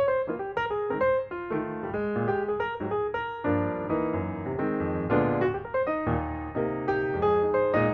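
Background piano music, a steady stream of notes with chords.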